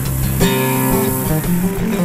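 Background music: a guitar melody of plucked notes changing pitch several times a second.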